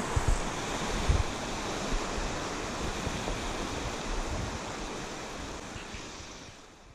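Mountain creek rushing over rocks, a steady wash of water noise, with a few low thumps in the first second or so; it fades out gradually to silence near the end.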